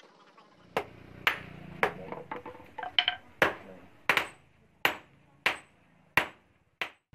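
Hand hammer striking a hot rebar knife blade on a steel anvil, each blow a sharp metallic clang with a short ring. The blows come unevenly with a few quick lighter taps at first, then settle into a steady beat of about one blow every two-thirds of a second.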